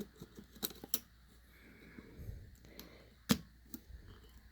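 Sharp clicks and taps of small teardown tools against a phone's internals while prying its motherboard loose, four in all, the loudest about three seconds in.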